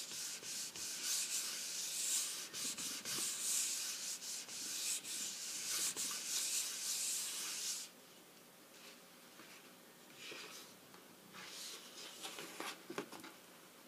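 Paper towel rubbed back and forth over cardstock, a steady scratchy rubbing as spritzed ink is worked into the paper, which stops about eight seconds in. A few softer paper rustles follow as the sheet is handled and lifted.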